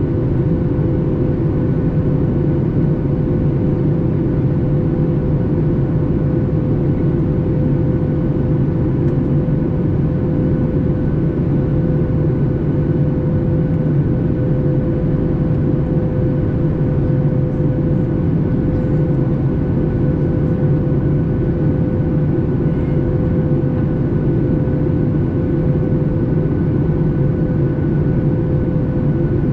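Steady cabin drone inside a Boeing 737 MAX 8 in flight: its CFM LEAP-1B engines and the airflow over the fuselage make a deep, even rumble with a constant whine above it, unchanging throughout.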